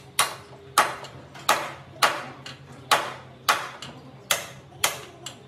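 Hand hammer striking metal repeatedly, about two blows a second, each blow ringing briefly, over a steady low hum.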